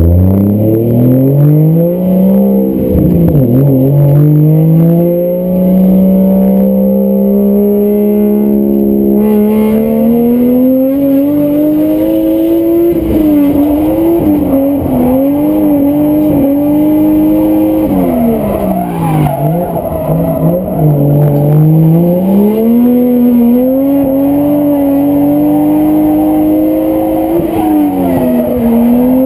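Lexus drift car's engine heard from inside the stripped, caged cabin, revving hard under acceleration. The engine note climbs steeply at the start, dips briefly about three seconds in, holds steady, then rises and falls again and again as the throttle is worked through the drift. It drops sharply twice, just past the middle and again near the end.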